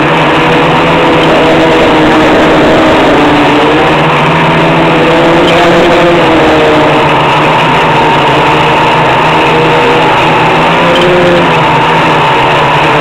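Brushless outrunner motors and propellers of a DIY quadcopter in flight, heard up close: a loud, steady buzz with whining tones that drift up and down in pitch as the flight controller varies the motor speeds.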